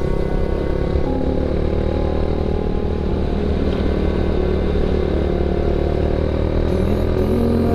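Motorcycle engine running at a steady cruise with road and wind noise, heard from the moving bike.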